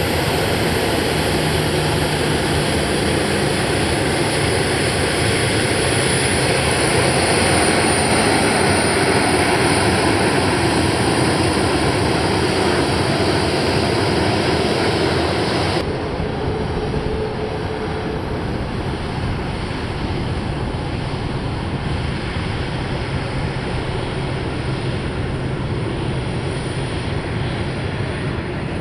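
A KC-135 Stratotanker's four turbofan engines running at taxi power as it rolls past: a steady jet rumble with a high whine that slowly falls in pitch. A little over halfway through, the whine drops out suddenly and the rumble goes on duller and slightly quieter.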